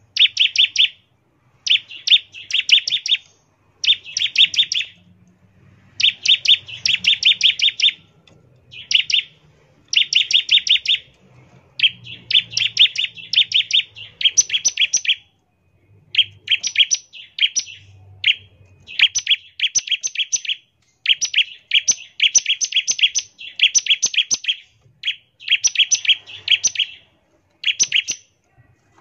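Bar-winged prinia (ciblek) singing a fast rattling 'ngebren' song. It comes as phrases of rapid repeated notes, each about a second long, again and again with short pauses between them.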